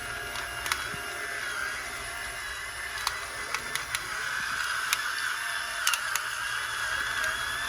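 Battery-powered electric pepper mill running steadily as it grinds black pepper, a high, even motor whir with scattered sharp clicks.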